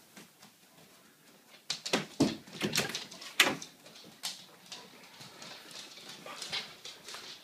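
Dogs moving about on a hardwood floor: a run of sharp clicks and knocks about two to three and a half seconds in, then lighter tapping.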